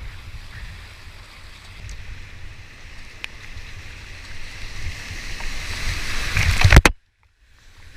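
Rushing whitewater around a kayak, a steady noisy wash with a low rumble that builds up louder, then cuts off suddenly near the seventh second; after a brief near silence, a quieter rush of water comes back.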